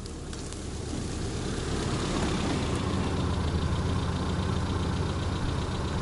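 Passenger car driving slowly along a dirt forest track toward the microphone and up alongside it, its engine running at low speed. The engine hum grows louder over the first few seconds as the car nears, then holds steady.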